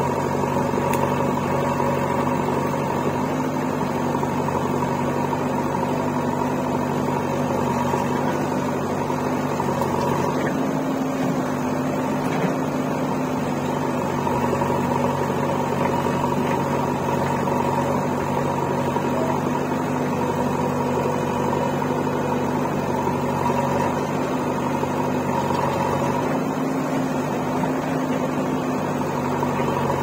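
Diesel engines of a tractor and a JCB 3DX backhoe loader running together in a steady drone, the engine note shifting slightly a couple of times.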